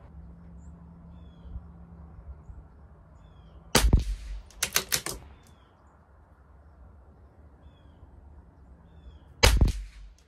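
Two shots from a CZ 457 LRP bolt-action .22 LR rimfire rifle firing Geco ammunition, one about four seconds in and one near the end, each a sharp crack. Less than a second after the first shot comes a quick run of metallic clicks as the bolt is worked for the next round.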